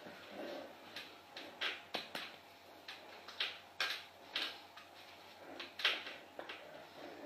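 Faint, irregular swishes and rustles of a hooded sweatshirt's fabric as the arms in its sleeves wave and gesture, the loudest a little before the end.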